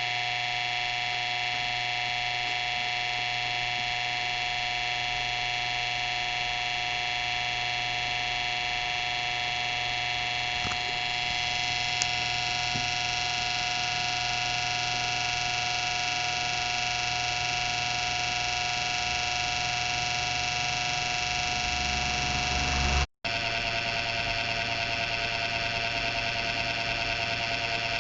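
A computer giving off a loud, steady whining buzz made of many held tones. This is an abnormal noise that the owner takes as a sign the PC may be nearing its end. It cuts out briefly near the end and comes back slightly rougher.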